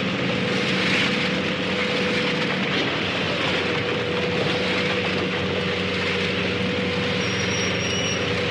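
Tractor and harvester running steadily: a constant engine hum and drone over a broad rushing noise from the working machinery, with a faint high whistle briefly near the end.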